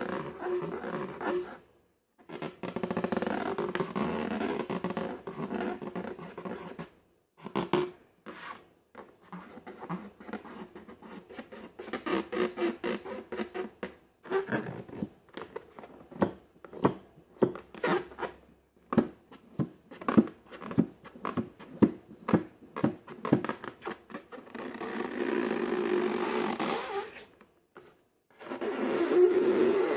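Close-up slime being squeezed and worked. There is a dense run of sticky clicks and pops from about 14 to 24 seconds in. This sits between longer sustained stretches of a squelchy, flatulent-sounding texture with a steady pitch, broken by brief silent cuts.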